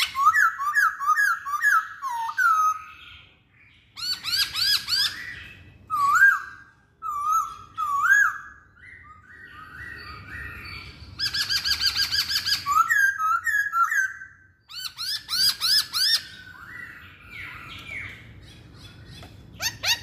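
Black-throated laughingthrush singing: loud phrases of quick, rising whistled notes, each phrase a rapid run of about a second or two, repeated several times with short pauses between.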